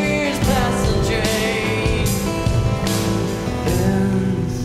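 Background music: a song with singing and instruments.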